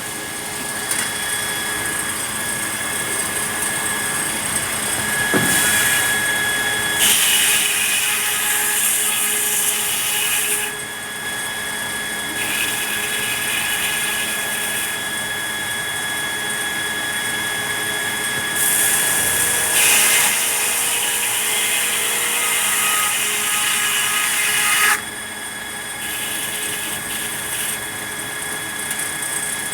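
Sawmill saw machinery running steadily with a constant whine, rising into two louder hissing stretches of cutting through red pine, about a third of the way in and again in the later part, with a single knock shortly before the first cut.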